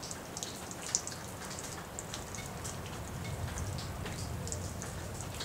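Rain falling, with irregular ticks of raindrops striking close by over a steady hiss. A low rumble swells about three seconds in.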